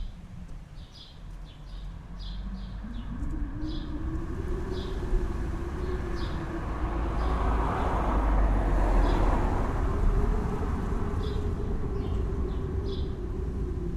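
Birds chirping in short, scattered calls over the low rumble of a passing vehicle that swells to its loudest about two-thirds of the way through and then eases off.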